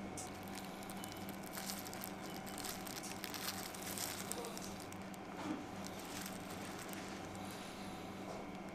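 Thin disposable plastic gloves crinkling and rustling as the hands handle and break apart a small baked cake bar, in irregular bursts of crackle that are busiest in the first half. A steady low electrical hum runs underneath.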